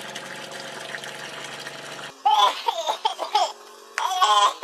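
Thin stream of water pouring from a stone wall spout into a basin, a steady splashing. It cuts off suddenly about two seconds in, and a high-pitched voice sounds twice.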